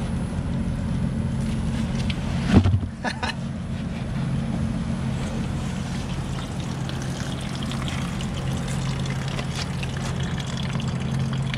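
Wet cake of belt-grinder sludge knocked out of a plastic grind bucket: one thud about two and a half seconds in, then a couple of lighter knocks. A steady low machine hum and faint trickling water run underneath.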